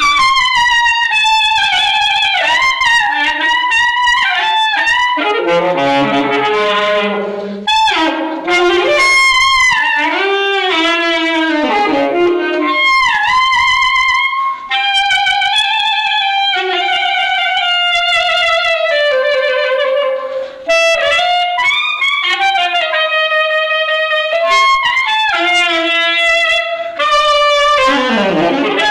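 Saxophone played solo and unaccompanied: sliding bends at the start, a fast run of low notes a few seconds in, then mostly held notes with short runs between them.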